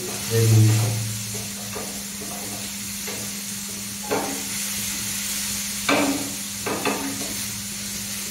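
Chicken frying and sizzling in a pan on a gas stove, with metal tongs clinking against the pan a few times as the pieces are turned. A brief louder low sound comes just after the start.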